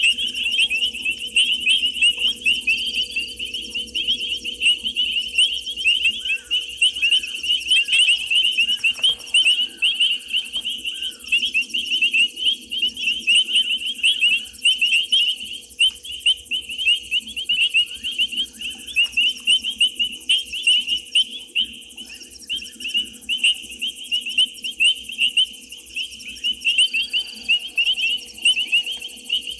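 Dense night chorus of small calling animals at a waterhole: many rapid, high-pitched chirps overlapping without a break, with a faint steady hum beneath.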